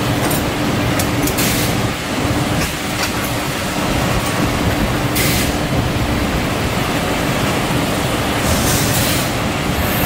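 Hot coil-spring winding machine running: loud steady machine noise with a low hum, broken three times by short bursts of hiss and a few sharp clanks.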